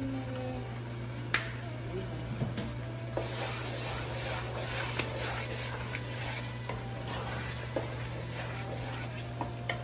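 Wooden spoon stirring a pot of simmering matembele (sweet potato leaf) stew, a soft scraping and bubbling with small knocks, starting about three seconds in. A single sharp knock comes a little over a second in, over a steady low hum.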